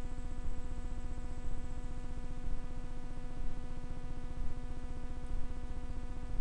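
A steady buzzing hum with a low rumble underneath, and faint thumps about once a second.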